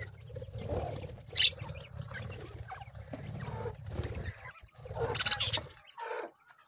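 Budgerigars chirping and fluttering over a low steady rumble, with a louder rustling burst about five seconds in.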